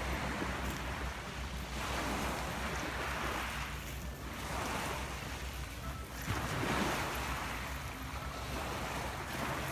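Small waves washing up onto a pebble beach, swelling and easing every two to three seconds, with a low wind rumble on the microphone.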